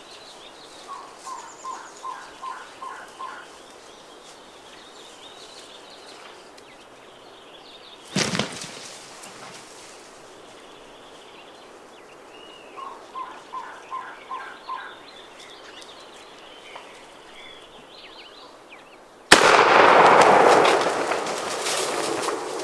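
Two runs of six or seven evenly spaced turkey yelps, with faint small-bird chirps and a single sharp crack between them. Near the end a single loud gunshot goes off, its report fading over the last few seconds.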